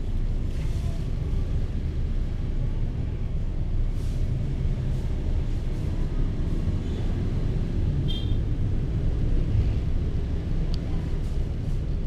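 Steady low rumble of outdoor background noise, with a brief high chirp about eight seconds in.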